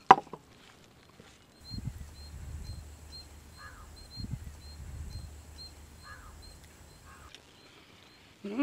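Quiet eating by hand: fingers mixing rice with ghee and dry shrimp powder on a banana leaf, then low muffled chewing for several seconds. A faint high chirp repeats about twice a second throughout.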